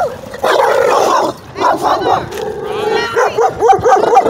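Dogs barking and yelping in a rapid string of short calls, with a high whine about three seconds in.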